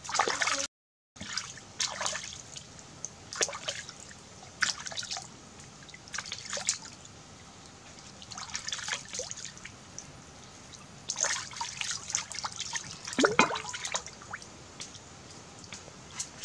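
Water splashing and dripping as a catfish is rinsed by hand in a shallow stream: irregular short splashes every second or so, with a run of louder splashes about eleven to fourteen seconds in.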